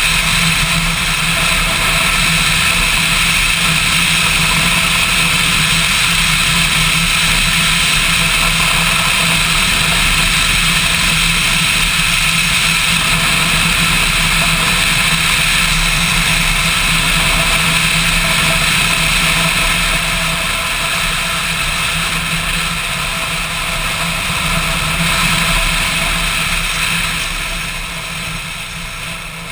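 Motorcycle engine running steadily at road speed, mixed with wind and road noise, heard from a camera mounted on the bike; it eases off briefly near the end.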